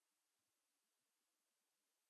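Near silence: the audio track is essentially empty.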